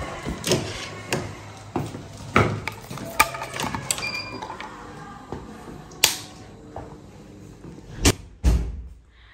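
Scattered clicks and knocks from a hotel room door, its lever handle and a keycard as someone lets themself in and moves into the room; two louder knocks come near the end.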